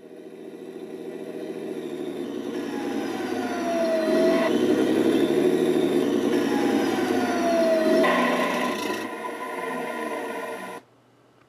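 Simulated RC tank sound from a Benedini TBS Mini sound unit: a grainy, rumbling running sound that swells up over the first few seconds. Two falling whines sound over it. It cuts off suddenly near the end.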